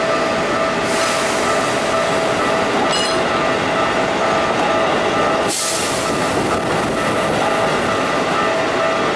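Train running through a level crossing close by: a steady, loud rush of wheels on the rails, with a few steady tones over it and a sudden change in the noise about five and a half seconds in.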